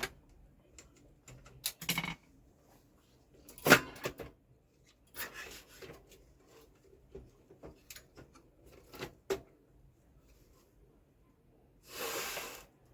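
Scattered clicks and light knocks of plastic parts being handled inside a Canon LBP 2900 laser printer as a sensor is pressed out from one side, the loudest knock about 4 s in, with a short scraping rustle near the end.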